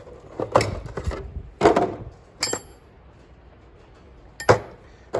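Steel wrenches clinking and knocking as they are handled in a tool cart drawer: four separate knocks, two of them with a brief high metallic ring.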